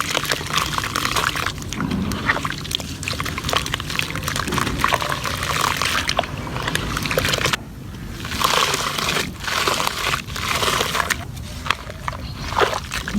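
Gritty cement crumbling in water: dense crackling of small crumbs with sloshing, pouring water, dipping briefly about seven and a half seconds in.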